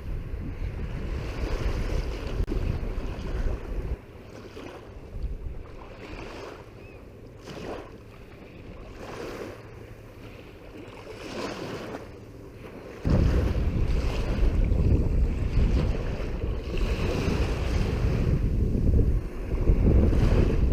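Wind buffeting the microphone over small waves washing onto the shore. The wind rumble drops away suddenly about four seconds in, leaving the quieter wash and lap of the water. It comes back just as suddenly, and loud, past the middle.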